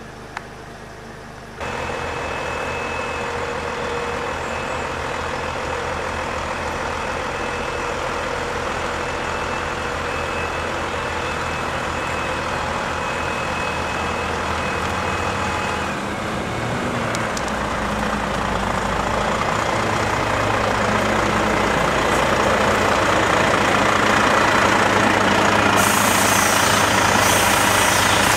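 Volvo heavy-haulage tractor unit's diesel engine running steadily while it pulls a loaded low-loader trailer. The engine note deepens after about sixteen seconds, and air hisses near the end.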